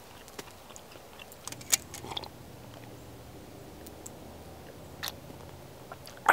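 Eating and drinking sounds: quiet chewing and a few sharp small clicks and taps, the loudest about two seconds in, as a metal camp cup is lifted to the mouth and sipped from.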